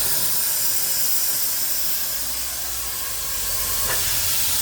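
Steam blower ring of a fire-tube boiler hissing steadily, jetting steam up the stack to force draft through the firebox, with its valve only partly open.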